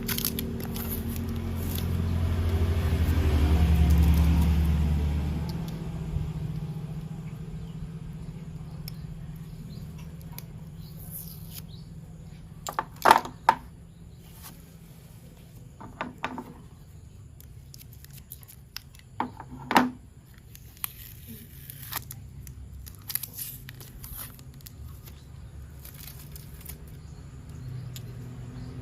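A few sharp clicks and knocks, as of hard plastic toy-train parts being handled, over a steady low hum.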